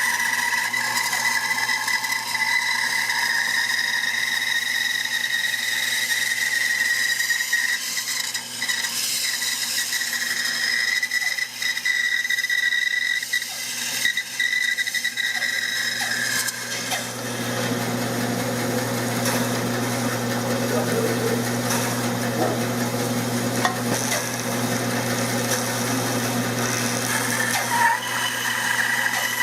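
Bandsaw running and cutting a walnut gunstock blank along a traced outline. It runs steadily with a high whine, and about halfway through the sound changes to a heavier, lower hum with more noise, as if under more load or a different part of the cut.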